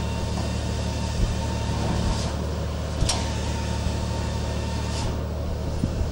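Steady low drone of a ship's machinery, with three brief swishes about two, three and five seconds in.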